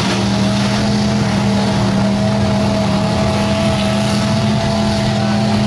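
Mud-bog truck's engine running hard at a steady pitch as the truck plows through a deep mud pit, over a heavy, constant wash of noise.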